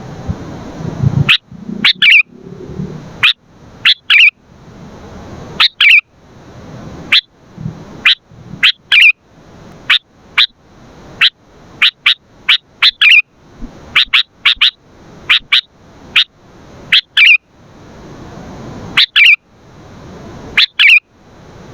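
Sooty-headed bulbul (kutilang) calling: short, sharp, loud notes, often in quick pairs or little clusters, repeated about once a second.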